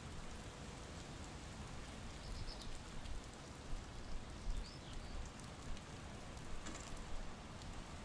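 Water dripping and trickling after rain, an even hiss with a low rumble beneath, with two brief bird chirps around the middle.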